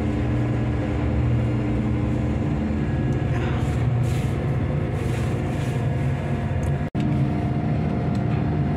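Steady low drone of ship's machinery with a hum of several fixed tones, heard from inside a steel lube oil sump tank; the sound cuts out for an instant about two seconds before the end.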